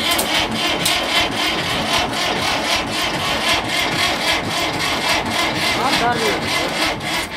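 Fiat 480 tractor's three-cylinder diesel engine running just after a cold start from long standing, with an even pulsing beat, then cutting off suddenly near the end.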